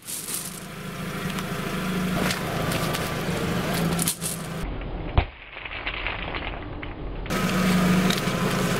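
A car engine idling, with crackling and crunching noises over it and one sharp snap about five seconds in.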